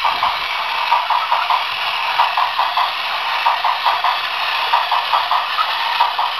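A Plarail battery-powered toy train, an Enoden tram model, running along plastic track: a steady gear-motor whir with rapid, uneven clicking and clatter as the wheels roll over the track.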